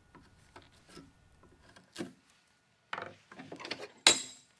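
Wood chisel paring out the corners of a recess in a dense osage orange gunstock blank: small taps and scrapes, a cluster of scraping about three seconds in, and a sharper wooden knock near the end.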